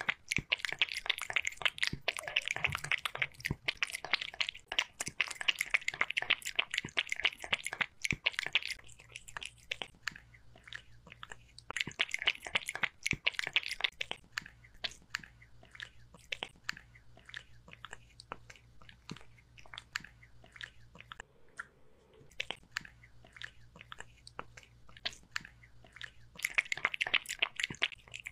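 A kitten lapping broth from a glass bowl: rapid, wet tongue clicks. The clicks come in louder bouts during the first eight seconds, again about halfway through, and near the end, and are quieter in between.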